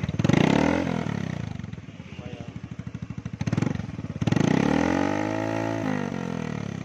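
Yamaha Mio GT scooter's single-cylinder four-stroke engine revved through a short aftermarket slip-on muffler fitted with a dB killer (silencer insert). There is a quick throttle blip just after the start and a brief one midway, then a longer rev that rises and settles back to idle.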